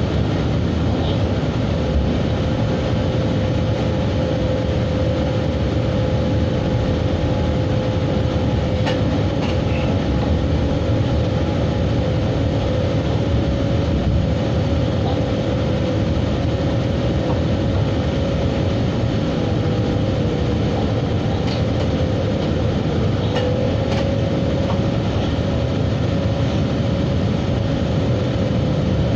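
Train running along the track: a steady low rumble of wheels on rails with a steady hum underneath, and a few sharp clicks.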